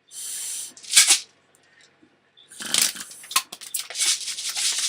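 Homemade medicine-bottle-and-pen BB shooter being tried out: a short hissy rush of air, a sharp burst about a second in, then a run of rapid noisy bursts and clicks through the second half.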